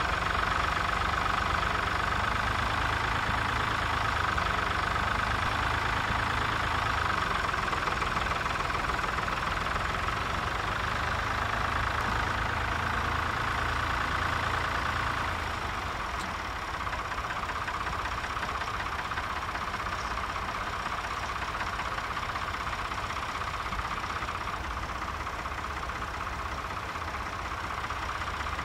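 Tractor engines running steadily while ploughing, a continuous engine drone that drops slightly in level about halfway through.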